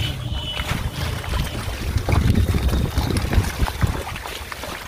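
Uneven low rumble of wind on the microphone, with small splashes and sloshing of hands working in shallow muddy water.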